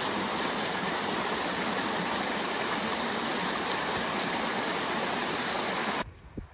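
Shallow creek rushing over rocks, a steady loud flow of water that cuts off suddenly near the end.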